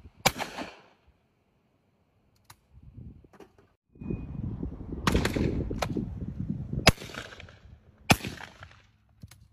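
Shotgun shots: one sharp crack about a quarter second in, then, after a short quiet spell, several more shots between about five and eight seconds in, each with a short ringing tail. Wind rushes on the microphone under the later shots.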